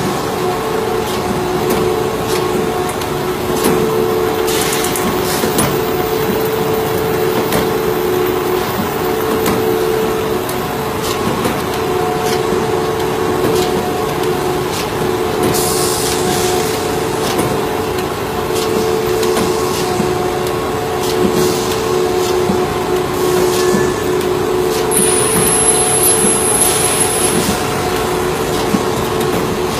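Punching machine running with a steady hum of several constant tones, with a few brief hisses over it.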